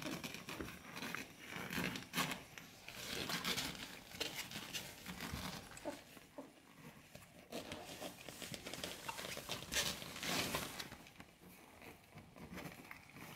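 A litter of young puppies nursing: irregular runs of small wet clicks and smacks from suckling, with shuffling on the bedding.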